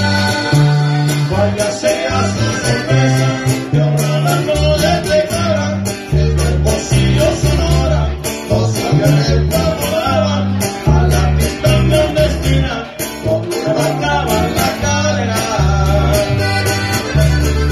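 Live Mexican regional band playing a corrido: strummed and picked guitars over a deep, bouncing bass line, with a voice singing.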